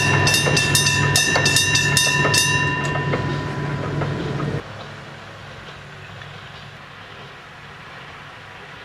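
A Kominato Railway KiHa 200 diesel railcar running over a level crossing: engine drone and wheels clacking over the rail joints, with a ringing level-crossing bell. The clacks and bell die away about three seconds in, and the train sound drops off sharply a little later, leaving faint background noise.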